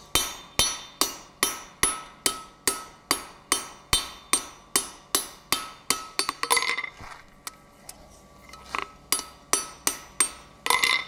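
Hand hammer striking a hot 12 mm square steel bar bent into a heart, held on the anvil face with tongs: a steady run of ringing hammer-on-steel blows, about two and a half a second. About six seconds in the blows stop for a short scraping clatter, then a few more blows come near the end.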